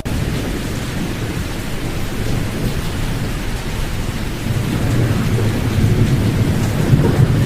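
Steady pink noise with the high frequencies cut, a deep, even hiss weighted toward the low end. It drops out for an instant right at the start and swells slightly about halfway through.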